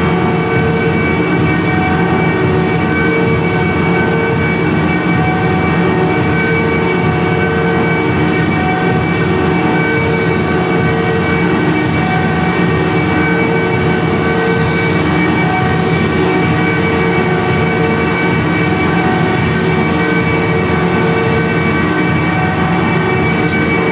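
Loud electronic noise drone from a laptop performer: several steady held tones over a dense, quickly fluttering rumble, with no break or change.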